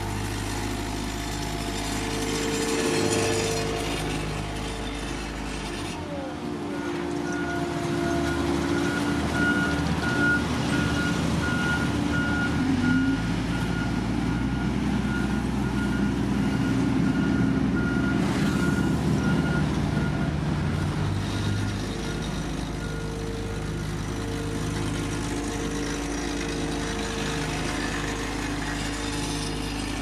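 Heavy diesel construction machinery running steadily, with a reversing alarm beeping repeatedly through the middle of the stretch.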